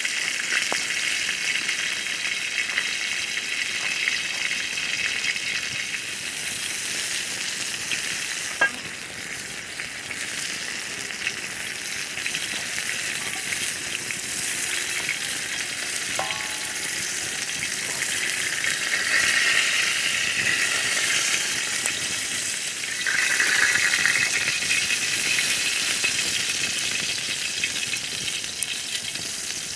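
Food sizzling as it fries in a pan, a steady hiss that swells louder twice in the second half, with one sharp click about nine seconds in.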